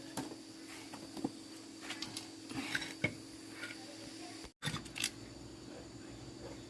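Light metallic clinks and taps of tools and parts being handled over a steady low hum. The sound drops out for an instant about four and a half seconds in.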